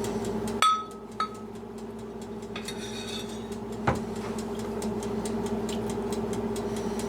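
Kitchen cookware clinking: two sharp clinks with a short ring about a second in, then a single knock a few seconds later, over a steady hum.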